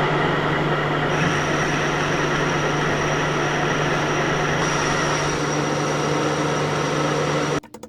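Metal lathe running while a tool skims the inside of a steel pipe: a steady machine hum, with a high whine from the cut joining about a second in. It cuts off suddenly near the end.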